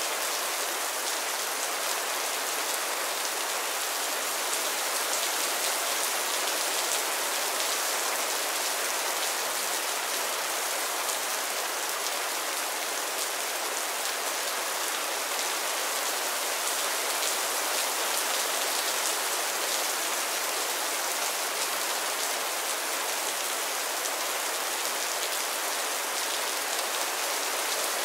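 Steady rain falling: an even, unchanging hiss of many fine drops, with little low rumble.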